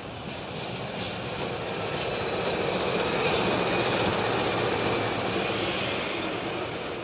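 GE CC206 diesel-electric locomotive running light past at close range on shunting duty. Its diesel engine noise swells to its loudest about midway through as the locomotive passes, then fades as it moves away.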